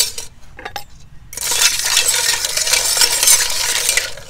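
A sharp metal clink, then about three seconds of dense clattering as a basin of freshwater snails is stirred, the shells knocking together and against the metal put in with them.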